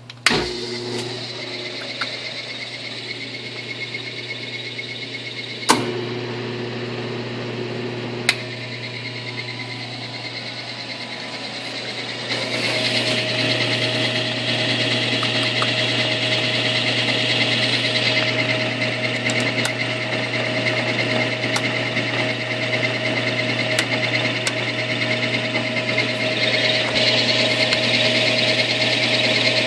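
Rotary phase converter switched on with a sharp click, then its idler motor running with a steady hum. Two more sharp clicks follow, and about twelve seconds in the running sound grows louder with a steady whine added.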